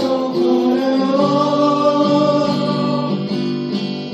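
A group of voices singing a Korean pop song to strummed acoustic guitar, holding long sung notes.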